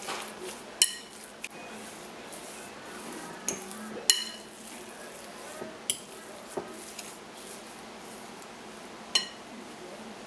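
A metal fork stirring thick oatmeal cookie dough in a glass mixing bowl: a steady scraping, squishing stir broken by several sharp clinks of the fork against the glass, the loudest about four seconds in.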